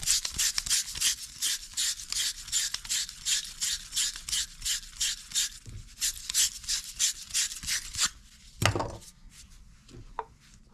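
Wire fitting brush scrubbing the inside of a brass solder fitting, an even rasping of about four strokes a second: the fitting is being cleaned bright before flux and soldering. The scrubbing stops about eight seconds in, followed by a single dull knock.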